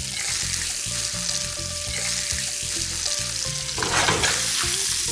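Steak sizzling as it sears in hot garlic oil in a frying pan, a steady hiss that starts as the meat goes in and flares louder briefly about four seconds in.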